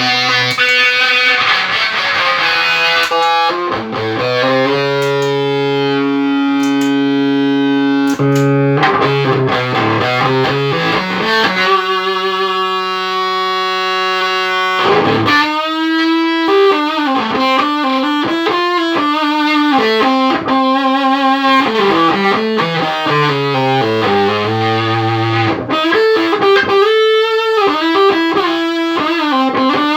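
Electric guitar played with distortion through a Line 6 POD HD500X multi-effects processor: held chords ringing for several seconds, then quicker riffing from about halfway on. It is a sound test of the unit after repair of its footswitches, menu encoder and expression pedal sensor.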